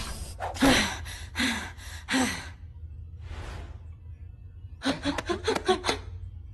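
Cartoon fight sounds: a character's short grunts and gasps of effort, each falling in pitch, a soft whoosh a little past midway, then a quick run of about eight sharp hits about five seconds in.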